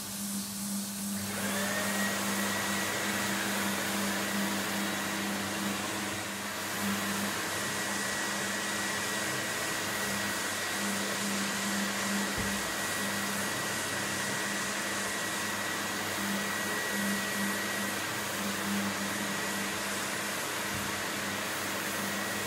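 Bona rotary floor sanding machine running with a 220-grit Red Heat screen, cutting back a cured floor coating to key it for the next coat, together with its dust-extraction vacuum. A steady hum with a thin high tone over it, a little louder from about a second in.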